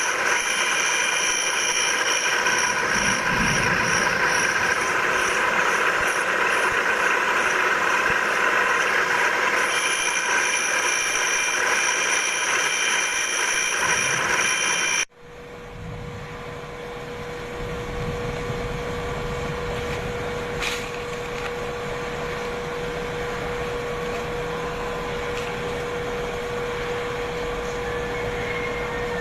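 Grinding machine sharpening a circular blade: steady grinding with a high motor whine. About halfway through it cuts off sharply, and a quieter steady machine hum with one low tone takes over.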